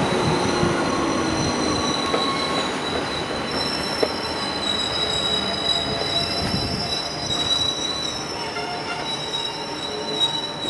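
Freight train rolling slowly during shunting, its wheels squealing in high, steady tones over a low rumble of the wagons that eases off after the first few seconds.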